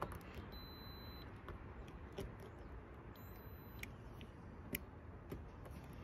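A few faint, scattered clicks from a small momentary toggle switch being pressed while its terminals are tested with multimeter probes.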